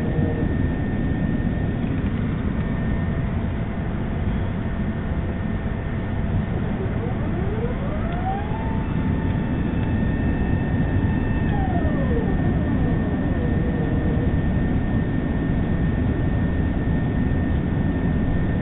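Steady rush of an Airbus A380's engines and airflow heard inside the passenger cabin in flight, with a faint steady high tone throughout. About seven seconds in, a whine rises, holds for about three seconds, then falls away.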